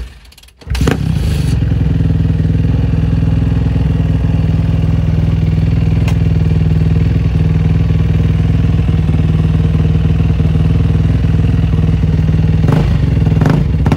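Dirt bike engine held at a steady high rev, cutting in abruptly about a second in, as the rear wheel spins and digs into sand for traction.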